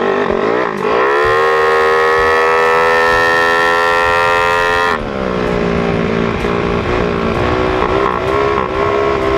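Yamaha Mio Sporty scooter's modified single-cylinder engine under hard acceleration on a top-speed run. About a second in the revs climb sharply, then hold at a high, steady whine for several seconds. About five seconds in they drop and waver up and down at lower revs.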